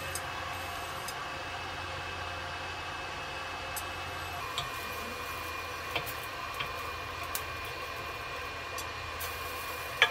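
Corelle Seka induction cooktop running with its cooling-fan hum and a thin electrical whine, a higher whine joining about halfway. Wooden spatula tapping and scraping on the ceramic-coated grill pan a few times, with one sharp knock near the end.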